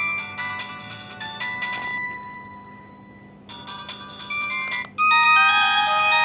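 LG A271 mobile phone playing its built-in ringtones: a melody of short electronic notes, then, about five seconds in, a brief break and a louder ringtone of overlapping held notes begins.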